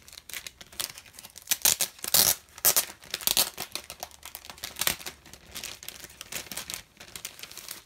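Plastic packaging crinkling and crackling as it is handled and opened, an irregular run of crackles loudest a couple of seconds in.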